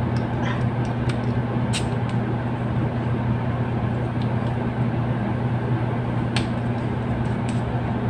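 Steady low mechanical hum, like a room's ventilation or air-conditioning unit, with two brief light clicks, about two seconds in and again past six seconds.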